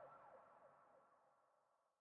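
Police siren sounding in fast repeated falling sweeps, about three a second, faint and fading out to near silence by the end.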